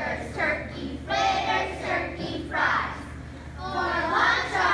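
A group of young children singing together in unison, with a short lull about three seconds in.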